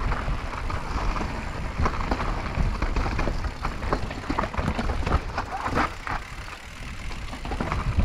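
Mountain bike riding fast down a dirt trail, heard through an action camera's microphone: steady wind rumble, with tyres crunching over dirt and stones and many short knocks and rattles from the bike.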